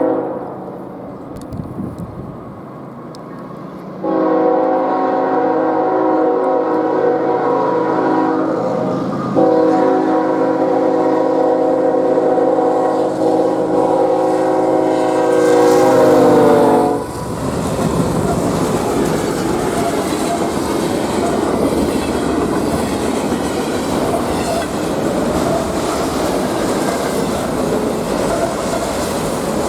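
A freight locomotive's air horn sounds a chord of several notes in long blasts, about 4 s in and again louder near 9 s. Its pitch drops as it passes at about 17 s. After that, the train's cars roll by with steady rumbling and wheel clatter on the rails.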